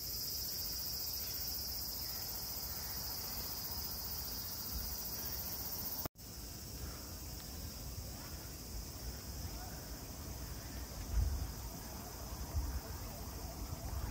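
Steady, high-pitched insect drone. It is loudest for the first six seconds, cuts out for an instant, then carries on more faintly, with a few low rumbles of wind on the microphone near the end.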